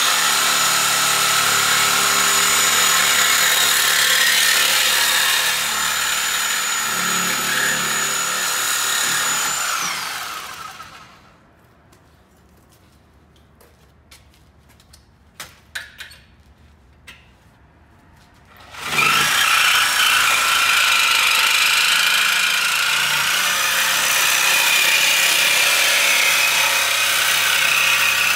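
Corded reciprocating saw cutting through a car's exhaust pipes ahead of the mufflers for a muffler delete, running at a steady speed. About ten seconds in it winds down and stops for several seconds, with a few light knocks, then starts again and cuts on.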